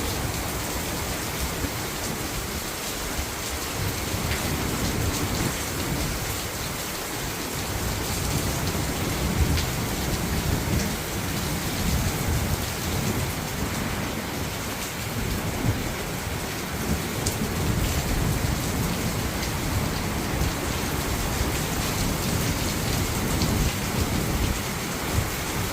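Heavy rain falling steadily, a dense even hiss of water, with a low uneven rumble underneath.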